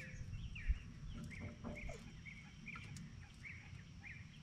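A small bird chirping over and over outside, quick short notes falling in pitch about three a second, with a single knock about a second in.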